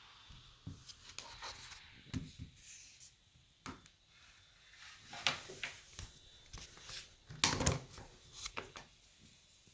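Dell XPS 15 9500 laptop being handled, lifted and set back on a table: a string of knocks, clicks and rubs. Under them runs a faint, very high-pitched fan whine that appears when the laptop is lifted, a sign of the fan's fault.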